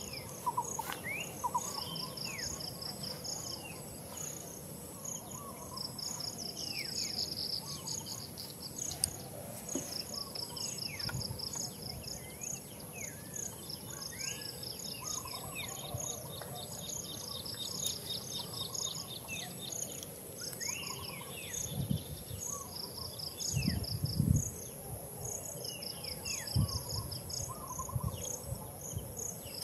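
Outdoor ambience of insects trilling in repeated bursts over a steady high buzz, with birds giving short falling chirps. A few low thuds come about three-quarters of the way through, the loudest near the end of them.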